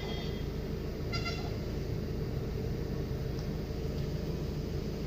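Steady low rumble of a moving car's engine and tyres, heard from inside the cabin, with one short vehicle horn toot about a second in.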